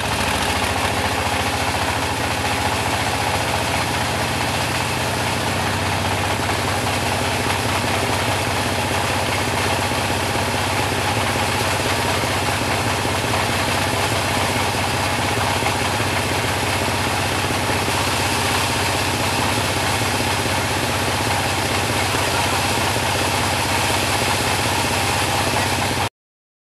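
Type 26 bandsaw mill running, a steady engine-like drone with a low hum; it cuts off suddenly near the end.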